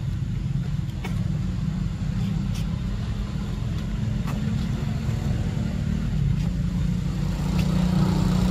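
Steady low hum of an engine running, with a few faint clicks over it.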